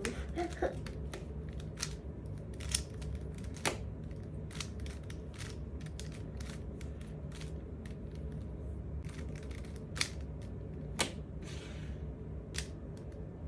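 Plastic Rubik's cube being turned by hand: irregular clicks and clacks of the layers rotating, with a few louder clacks scattered among them.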